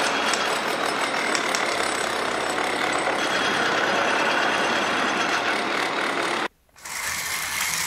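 Steady mechanical running noise with a rattle, like small motors. About six and a half seconds in it drops out for a split second, then resumes a little quieter.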